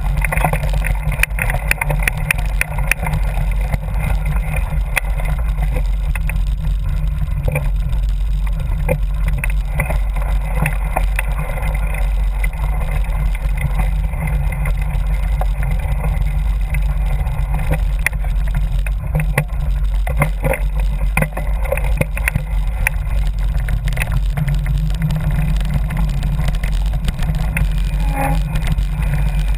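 Mountain bike riding fast over a rough dirt trail: wind rumbles steadily on the action camera's microphone, with frequent rattles and knocks from the bike over bumps.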